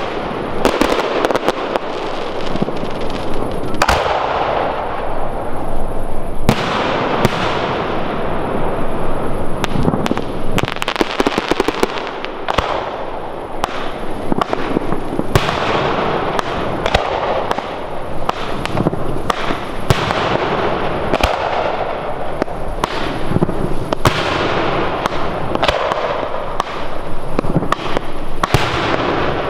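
Fireworks display firing without a break: a dense run of shell bursts and crackle, with many sharp bangs.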